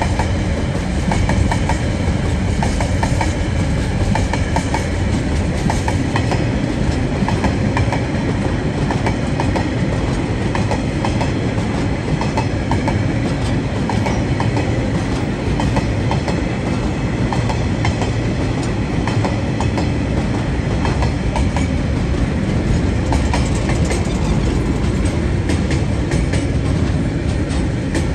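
TasRail freight wagons, container flats and empty log flats, rolling past: a steady rumble of steel wheels on the rails, with frequent clicks as the wheels pass over rail joints.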